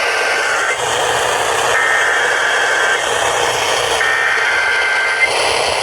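Weather radio receiver carrying an alert's SAME data header: three short bursts of warbling two-tone data signal over steady radio static, the first already under way, then two more about a second apart. It is the digital code that opens a new weather alert broadcast.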